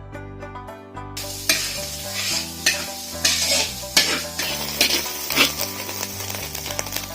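Minced meat frying and sizzling in a pan, starting about a second in, with repeated spatula strokes scraping and stirring against the metal. Background music plays underneath.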